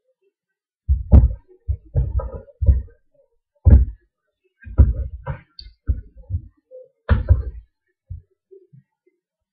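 Raw chicken pieces being worked by hand in a bowl of yogurt tandoori marinade: a run of about ten irregular dull thumps with wet squishing as the pieces and bowl are handled on the counter.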